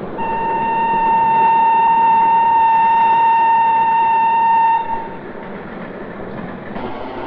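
Train horn sounding one long, steady note for about four and a half seconds, cutting off a little before five seconds in, over the steady rumble of the moving train, which carries on after the horn stops.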